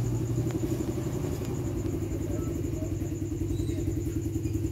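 An engine running steadily with a rapid, even pulse.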